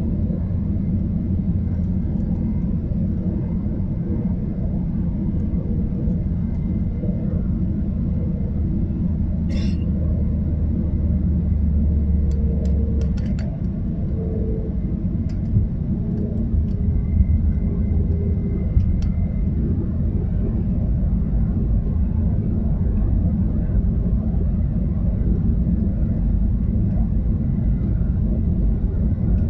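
Steady low rumble of jet airliner cabin noise, engine and airflow, heard from a window seat beside the engine. A few faint clicks sound near the middle, and the deepest part of the drone eases slightly about halfway through.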